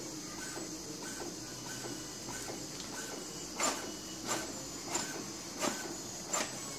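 Brother MFC-J430W inkjet printer printing a check page after a printhead cleaning: a steady mechanical whir with light regular ticks, then from about halfway louder strokes about every two-thirds of a second.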